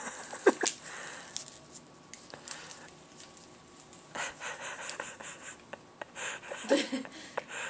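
Christmas wrapping paper rustling and crinkling as a toddler handles and pulls at presents, in short stretches about four seconds in and again near the end, with a couple of faint, brief vocal sounds.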